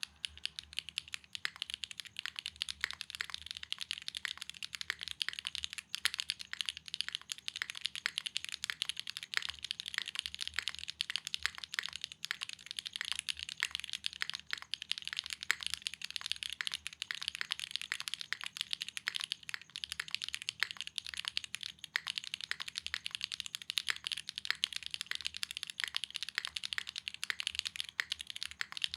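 Fast, continuous typing on a foamless, gasket-mounted Polygon-7 mechanical keyboard with Dragon Ghost switches, a PP plate and GMK keycaps. It makes a dense run of bright, crisp clacks.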